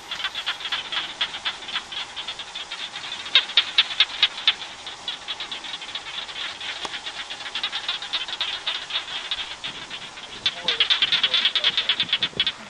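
A chorus of rapid, high-pitched chirping from many small calling animals, pulsing densely throughout and growing louder about ten seconds in.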